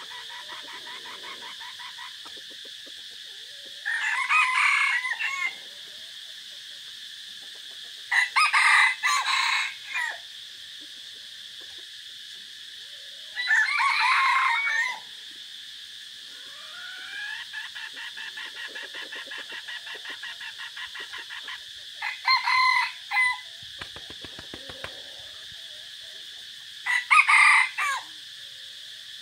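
Caged decoy junglefowl roosters crowing in turn, about five clipped crows spaced a few seconds apart over a steady high background drone. Soft rapid clucking runs between the crows.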